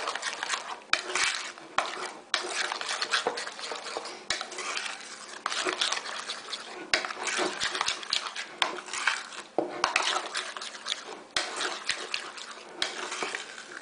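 Metal spoon stirring a thick yogurt-and-spice marinade in a ceramic bowl. It scrapes around the bowl with frequent irregular clinks against the sides.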